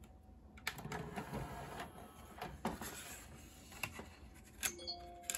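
Plastic CD jewel case being handled and set down on a countertop: irregular clicks, taps and scrapes, with a couple of short squeaky tones near the end.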